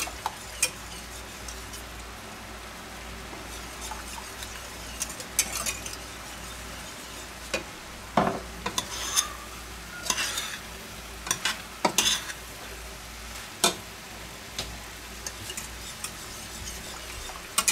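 Metal wire whisk stirring a sour-cream sauce in a stainless steel pot, with scattered scrapes and clinks against the pot, several of them bunched in the middle. Under it runs a steady sizzle from the pans on the hob.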